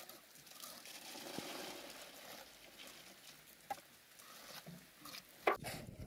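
Faint scraping and slapping of wet concrete being scooped by hand from a metal pan into the wooden formwork of a foundation beam, with a few knocks, the sharpest near the end.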